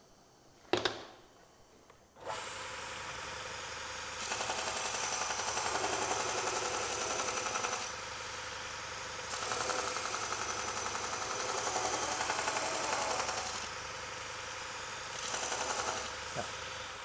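Robert Sorby ProEdge belt linisher starting up about two seconds in and running steadily. An axe blade held in a grinding jig is pressed to the belt in three passes, each a louder grinding hiss (the last one short), as the flat bevel of a carving axe is ground on a finer belt.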